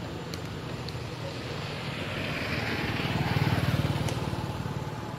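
A motor vehicle's engine passing by: a steady low hum that swells to its loudest about three and a half seconds in, then fades.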